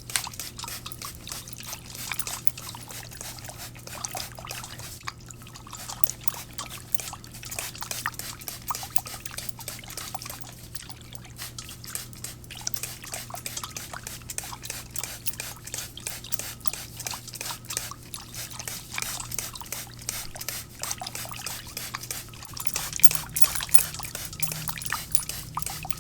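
Close-up ASMR hair sounds: hair oil being sprayed on and worked through hair by hand, a dense fine crackling that comes and goes, busiest near the end, over a steady low hum.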